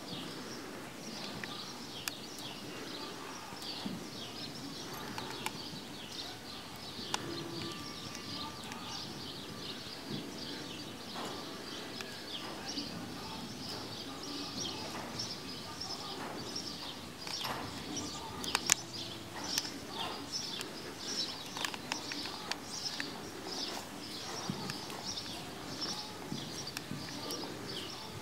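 Small birds chirping busily and continuously, over the soft footfalls of a horse trotting on arena sand.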